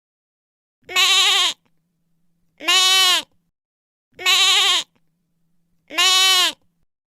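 Lamb bleating four times, evenly spaced about every second and a half, each bleat a short wavering call that rises and falls slightly in pitch. The four bleats are nearly identical, like one bleat repeated.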